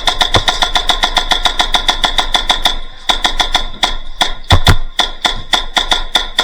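Airsoft electric gun firing on full auto, with its gearbox cycling: a rapid, even string of sharp clacks, about ten a second, in two long bursts with a brief pause a little under halfway through. A couple of heavier knocks come partway through the second burst.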